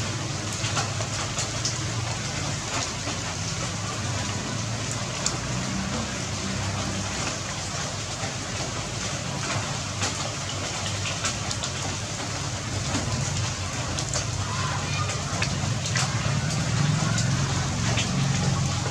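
Rain pattering steadily, with scattered sharp drop ticks, over a low steady hum.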